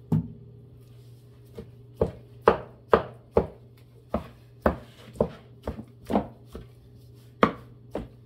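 Kitchen knife chopping cooked rotisserie chicken into small chunks on a cutting board: sharp, irregular knocks, about two a second.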